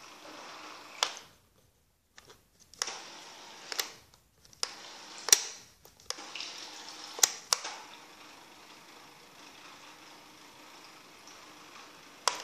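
Small electric motor of a remote-controlled bottle raft running, its propeller churning bathtub water, with a faint steady hum under the hiss. Several sharp knocks and clicks come through, and the sound cuts out briefly a few times.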